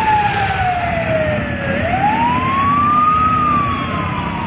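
Fire department pickup truck's siren on wail: one tone sliding slowly down, climbing again about two seconds in and starting to fall near the end, over a low rumble.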